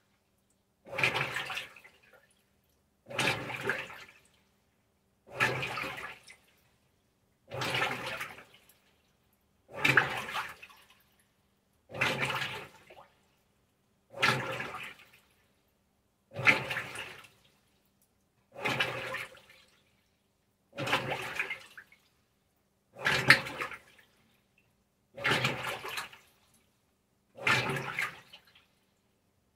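Maytag Centennial top-load washer agitating a load in water on its delicate cycle: a churning, sloshing stroke about every two seconds, each lasting about a second, with quiet in between.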